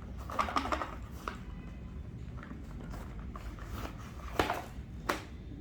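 Packaging being handled as the keyboard's cable is taken out of the box: a short rustle, then a few light clicks and taps.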